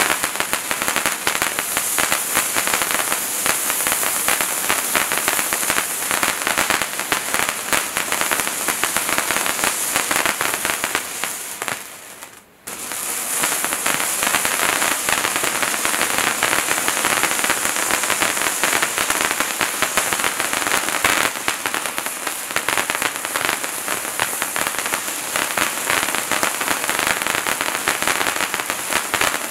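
Bright Star Wizards Wands hand-held firework fountains burning: a steady, loud hissing spray of sparks full of rapid crackles. About twelve seconds in, one wand dies away into a brief lull and the next takes over, hissing and crackling as before.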